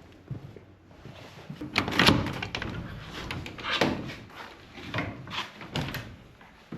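A door being opened and worked: a series of knocks, rattles and scrapes, loudest about two seconds in.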